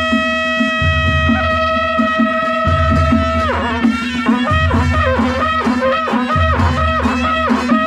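Traditional Nepali panche baja wedding band music, with karnal horns in the band: a wind instrument holds one long note, then about three and a half seconds in breaks into a quick melody of short notes over a low drum beat.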